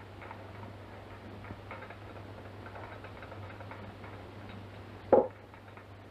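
Ice clicking faintly in a large glass as it is stirred, over a steady low hum. About five seconds in, a glass bottle is set down on the table with a short, loud clunk.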